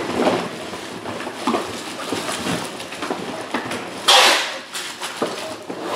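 Plastic-wrapped cardboard trading-card boxes being handled, with irregular rustling and light knocks, and a louder crinkling rustle about four seconds in.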